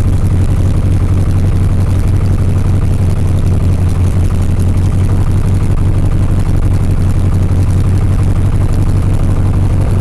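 The Aeronca Champion's 90 hp Continental four-cylinder engine and propeller running steadily, heard from inside the fabric-covered cabin as a loud, even low drone.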